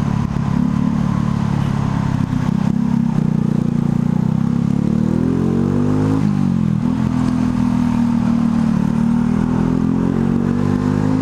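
Motorcycle engine running under way, with road and wind noise. About four and a half seconds in, the engine note climbs for over a second, then drops back sharply and settles to a steady pitch.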